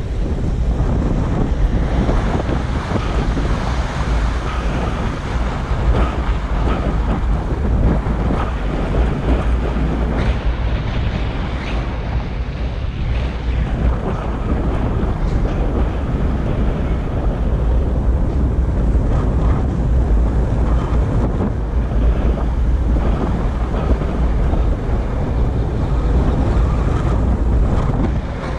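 Loud, steady wind rumble buffeting the microphone on a moving electric all-terrain skateboard, mixed with the road noise of its wheels, with small jolts over bumps.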